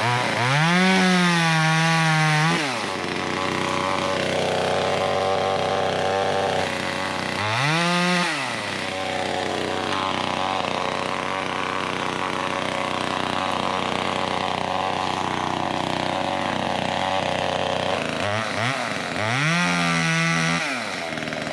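Small two-stroke top-handle chainsaw, an off-brand Chinese arborist saw, idling and revving up three times. The first and last revs are held for a couple of seconds each and the middle one is brief.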